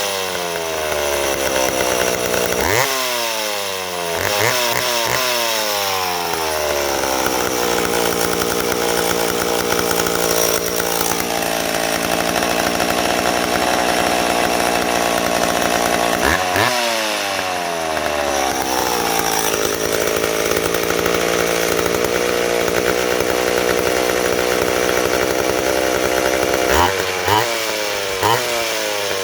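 McCulloch 10-10A two-stroke chainsaw engine running and being revved in sharp throttle blips, several near the start, one about halfway and a couple near the end. After each blip it sinks back slowly instead of dropping straight to idle, which the owner thinks may be a bad crank seal on the flywheel side.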